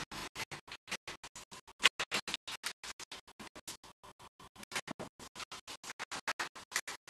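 Rapid rhythmic scratching: short, harsh strokes about seven a second, each cut off to dead silence before the next, with one sharper stroke near two seconds in.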